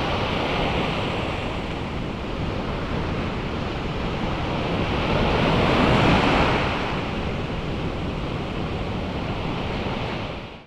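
Rough ocean surf breaking and washing in the shallows. It swells loudest as a wave breaks close by about six seconds in, and cuts off just before the end.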